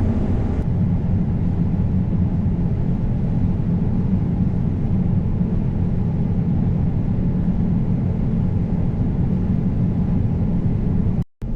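John Deere S780 combine harvester running steadily while cutting wheat, a low drone of engine and threshing machinery heard from inside the cab. The sound drops out for an instant just before the end.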